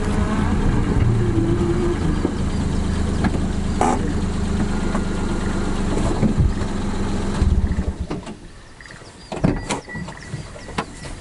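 Yanmar EG225 tractor's diesel engine running steadily, then shut off about three-quarters of the way through. A few clicks and knocks and a faint broken beep follow.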